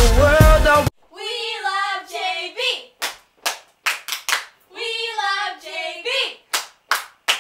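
Recorded pop music cuts off abruptly about a second in. Then girls sing unaccompanied in short phrases, with sharp hand claps in small groups between the phrases.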